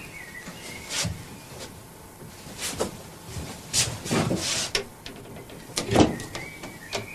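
Scattered knocks, clatter and rustling as a person moves about a small wooden room handling things, with a short thin squeak near the start and another near the end.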